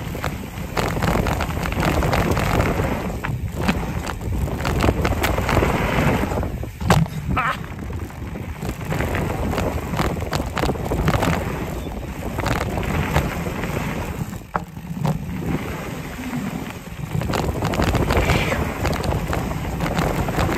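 Mountain bike riding fast down a dirt singletrack: knobby tyres rolling over dirt and loose stones, with many short clicks and rattles from the bike and gravel, and wind rushing over the microphone.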